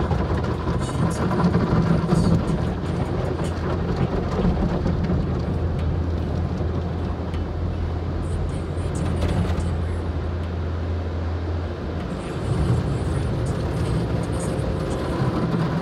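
Automatic car wash heard from inside the car: water and soap spraying and streaming over the windshield, over a steady low hum that drops out about twelve seconds in.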